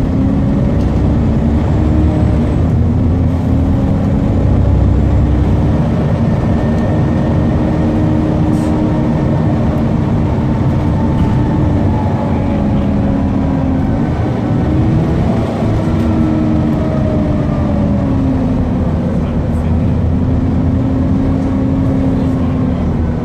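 Volvo B7TL double-decker bus on the move, with its Volvo D7C-275 engine and cooling fans running. Their tone rises and falls with engine speed, dipping and climbing again about two-thirds of the way through.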